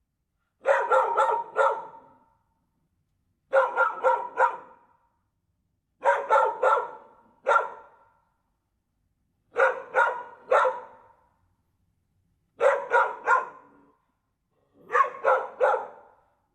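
Dog barking in six quick bursts of three or four sharp barks each, the bursts spaced about two to three seconds apart.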